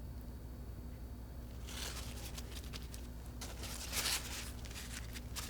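Handling noises: soft clicks and rustling in two short bursts, the louder about four seconds in, over a steady low hum.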